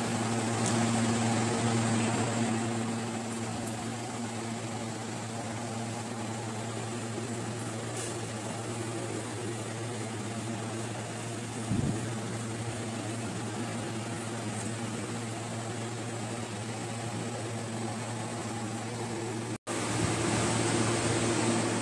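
Steady hum of room ventilation, a fan or air-conditioning unit running, with one brief low thump about halfway through.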